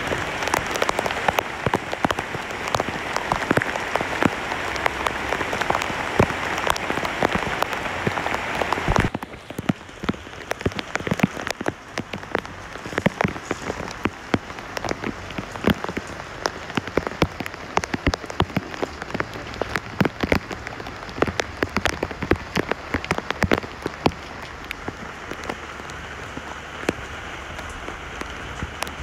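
Heavy rain falling on broad leaves, a dense steady hiss. About nine seconds in it changes abruptly to a thinner patter of separate drops striking close by.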